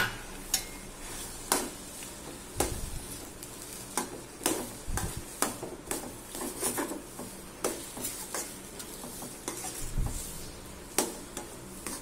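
A steel spoon stirring and scraping through raw mango slices and jaggery in a stainless steel kadai, with irregular clinks of metal on metal. This is the jaggery being sautéed into the softened mango for mango pachadi.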